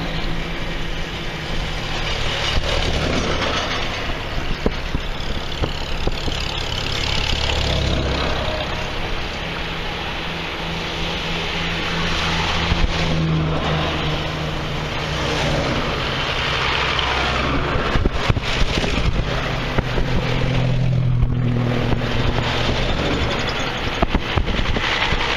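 Vintage farm tractor engines running as a line of tractors goes past one after another, each engine growing louder as it comes close, over a steady rushing noise.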